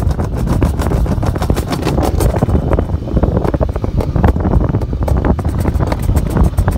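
Summer toboggan sled running at speed down a stainless-steel trough: a loud, continuous low rumble with a dense, uneven rattle of knocks.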